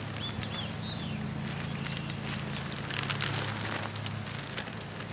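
Gravel being poured from a bag into a hole, a loose crackling rattle of stones that thickens about three seconds in.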